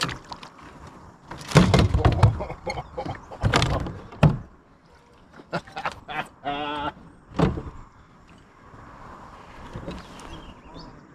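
Several heavy thumps and knocks, bunched in the first half, with a few lighter clicks after and a short wavering tone about six and a half seconds in.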